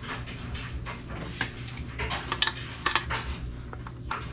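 Scattered metallic clinks and clicks of metal hand tools being handled against a connecting rod cap and engine block, over a low steady hum.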